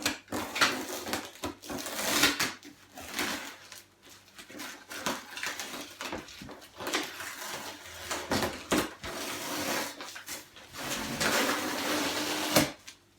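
Cardboard and paper being handled as a shipping box is opened by hand: irregular rustling, scraping and light knocks, with a longer scrape near the end.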